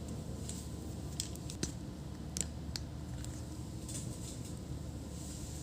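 Scattered light clicks and taps from a laptop being handled and put back together, over a steady low hum.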